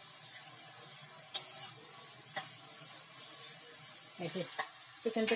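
Browned sliced onions sizzling steadily in hot oil in a metal wok. A metal spatula scrapes the pan a few times as they are stirred.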